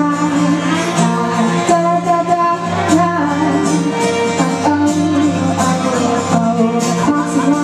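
A band playing a song live, with sustained instrument tones over a steady beat.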